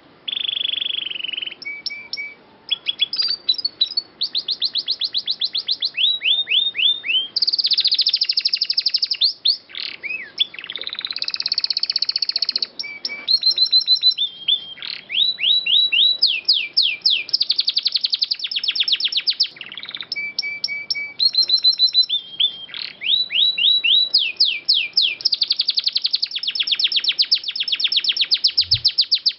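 Domestic canary singing a long, varied song: fast trills of rapidly repeated high notes, some rising and some falling, changing to a new phrase every second or two with short pauses between.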